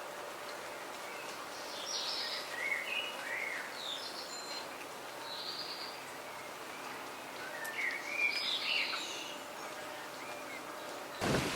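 Garden birds singing: short chirping and warbling phrases come in two clusters, over a steady faint background hiss. Just before the end the sound cuts suddenly to a much louder rushing noise.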